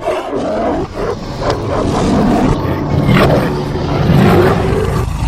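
Tiger roaring, loud and continuous.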